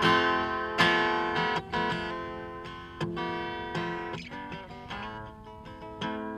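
Acoustic guitar played live, with strummed chords and single notes ringing out between the strokes. It gets gradually softer through the passage.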